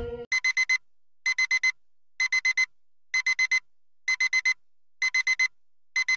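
iPhone alarm ringing: groups of four quick high-pitched beeps, repeating about once a second.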